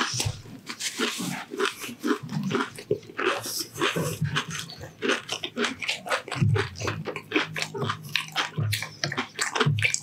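Close-up crunching and chewing of crispy deep-fried pork intestine (chicharon bulaklak): dense, irregular crackly crunches throughout. From about six seconds in, low humming mouth sounds join the crunching.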